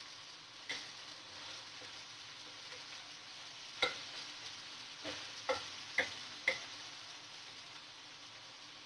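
A steady hiss with about six sharp clicks or clinks, one near the start and most bunched between about four and seven seconds in.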